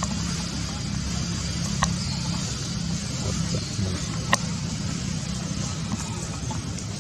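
A steady low hum like an engine running, with a faint high whine over it and a couple of soft clicks.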